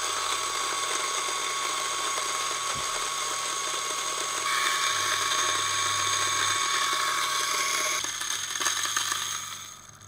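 DF54 coffee grinder's 150-watt motor and 54 mm flat burrs grinding light-roasted beans at a very fine espresso setting: a steady motor whine over dense grinding noise. The sound tails off over the last two seconds as the grind finishes.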